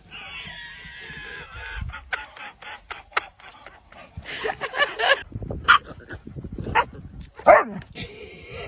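A dog whining in a long wavering tone, then giving several short barks.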